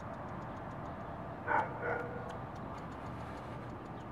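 Steady outdoor background hiss with a faint, regular ticking running through it, and two short pitched calls about a second and a half in, of an animal or a distant voice.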